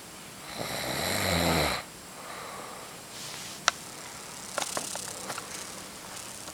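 Snoring: one long, rasping snore starts about half a second in, grows louder for about a second and then cuts off. Quieter breathing and a few sharp clicks follow.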